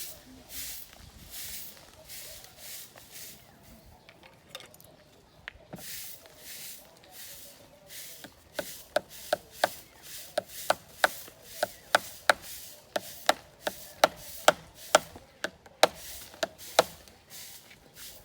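Manual construction work: repeated rasping strokes, then from about halfway a run of sharp hammer blows, about two to three a second.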